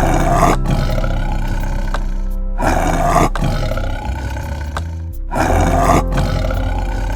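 A big cat roars three times, each roar short and rough, over steady background music.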